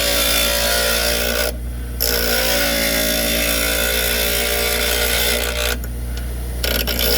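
Power grinder running steadily while the broken tip of a steel drill bit is ground flat against it, a loud harsh grinding noise over the motor hum. The grinding stops twice for under a second as the bit is lifted off, while the motor keeps running.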